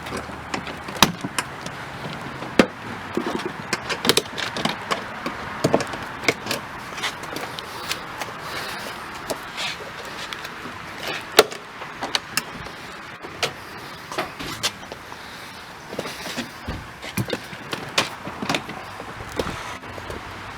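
Plastic push-pin clips of a 2003 BMW 530i door panel being pried loose with a trim tool: irregular sharp clicks, snaps and knocks of plastic against the door, several a second at times.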